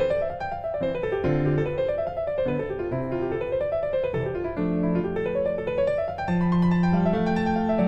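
Background piano music: quick rising and falling runs of notes over held bass notes.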